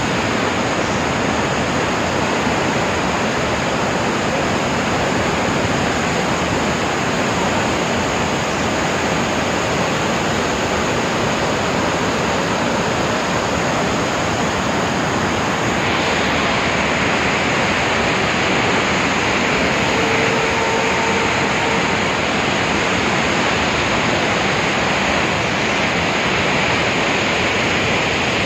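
Steady, loud rushing noise with no break.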